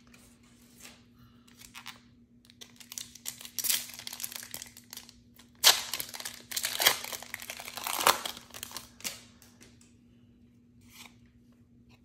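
A foil booster-pack wrapper being torn open and crinkled by hand, in irregular bursts, loudest about six to eight seconds in, then near quiet towards the end.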